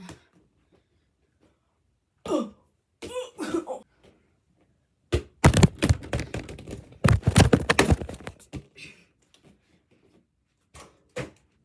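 A few short throaty vocal sounds, then several seconds of loud clattering, bumping and rubbing right on the phone's microphone as the recording phone is knocked over and handled, with a couple of short knocks near the end.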